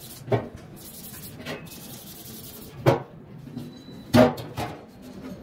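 Irregular knocks and clunks, about five strikes spaced a second or so apart, the loudest near three and four seconds in.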